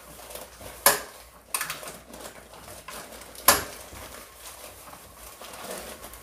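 Tableware clinking and knocking at a meal: three sharp, short knocks or clinks, the loudest about three and a half seconds in, over a low background.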